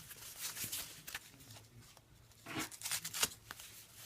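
Tape being pulled and torn off a mailed package, with the packaging rustling and crinkling in short irregular bursts, the loudest about two and a half to three seconds in.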